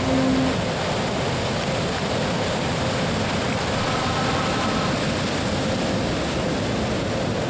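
Large ocean surf breaking: a steady, even rush of wave noise.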